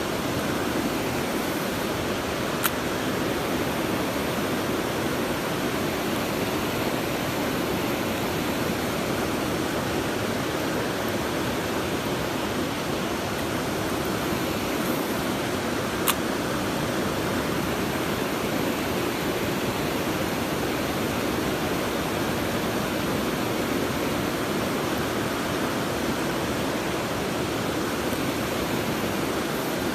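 Steady rush of stream water, with two brief sharp clicks, one near the start and one about halfway through.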